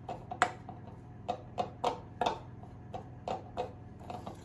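Metal spoon clinking against a glass mixing bowl while stirring a stiff flour, oil and water dough: irregular sharp taps, about two a second, over a low steady hum.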